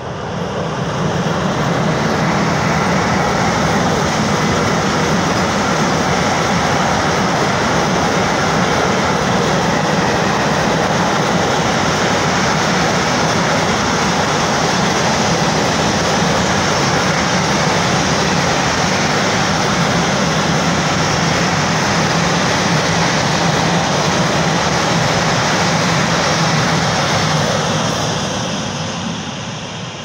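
Freight train of Eas open wagons hauled by a ZSSK Cargo class 131 twin-unit electric locomotive rolling past close by, with steady, loud wheel-on-rail noise. It builds as the locomotive arrives in the first second or two and fades near the end as the last wagons move away.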